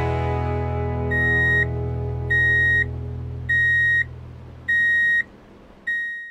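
A held guitar chord fades away under five evenly spaced electronic beeps, each about half a second long and a little over a second apart, all at one high pitch. The sound cuts off as the last beep fades.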